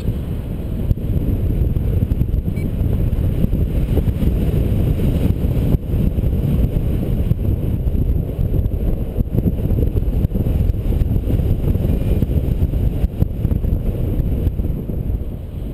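Wind buffeting the camera's microphone during paraglider flight: a steady, fluttering low rumble with no engine tone.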